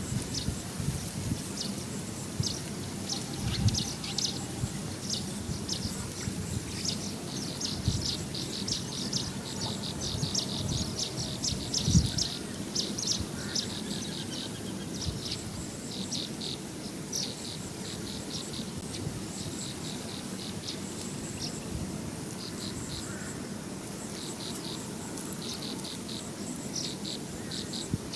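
Insects chirping: a chorus of short, high-pitched calls repeating throughout, over a low rumble with a few dull thumps, the loudest about twelve seconds in.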